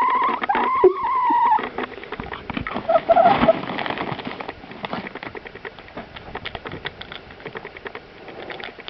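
A chicken's short, wavering call, followed by a run of quick small clicks and taps as it pecks crunchy cereal pieces.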